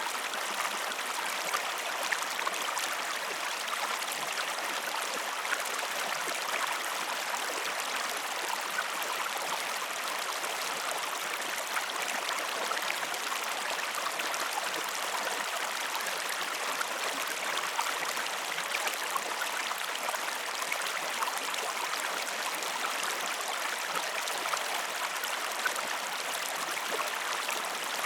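A stream flowing: steady babbling water with many small splashes and drips.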